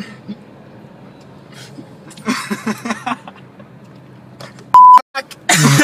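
A censor bleep: a loud, pure, steady high tone lasting about a quarter of a second near the end, cutting into a voice. Voices are heard in a short burst about two seconds in, and again loudly just after the bleep, over the steady low hum of a car cabin.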